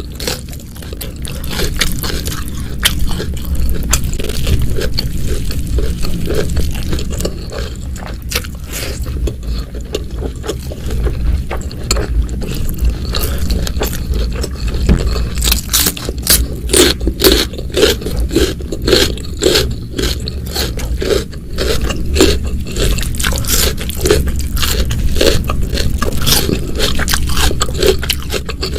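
Close-miked eating sounds: a person chewing, with many sharp crunchy, crackly clicks that grow denser and louder about halfway through.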